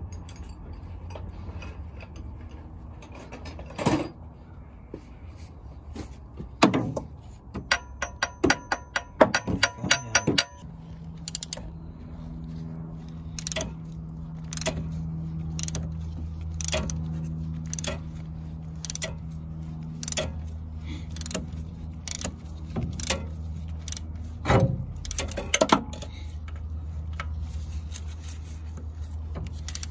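Ratchet wrench turning a bolt at the alternator: a quick run of clicks about eight to ten seconds in, then steady single clicks a little under a second apart, stroke by stroke.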